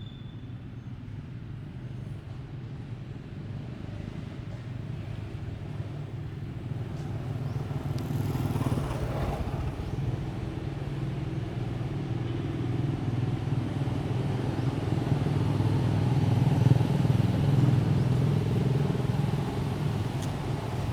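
A motor engine running with a steady low drone that grows gradually louder, with a brief louder rush about eight seconds in.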